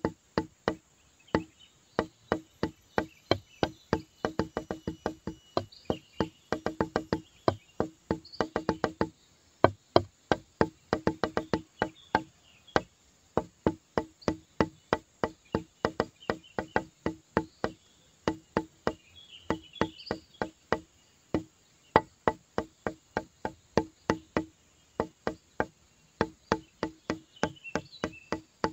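Background music with a fast, even clicking beat like a wood block, about three to four clicks a second, over a held low note.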